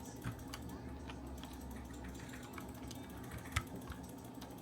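Irregular clicks and taps of a computer keyboard while its keycaps are being swapped, with one sharper click about three and a half seconds in.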